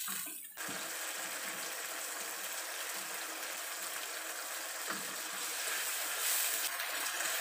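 Blended chili paste with onion, ginger and garlic sizzling steadily as it fries in oil in a wok, stirred now and then with a wooden spoon. It is being cooked down until it dries and the oil separates.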